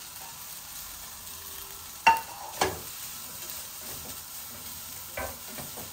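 Food sizzling in a frying pan with a steady hiss, while a metal utensil stirs it, knocking sharply against the pan twice about two seconds in and once more, more softly, near the end.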